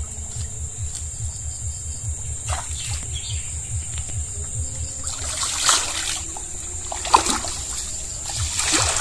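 Water splashing as a person wades through shallow canal water, several separate splashes over a steady low rumble, the sharpest about seven seconds in.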